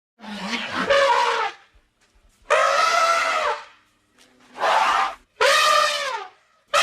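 Elephant trumpeting: four loud, brassy calls in quick succession, each about a second long, the first starting low before it rises.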